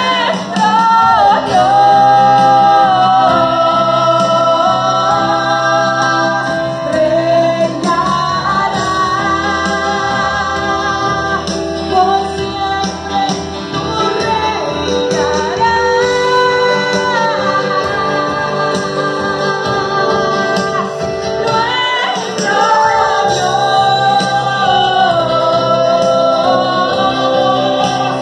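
Live worship song: singing with held, sustained notes over keyboard and acoustic guitar accompaniment, with a steady bass underneath.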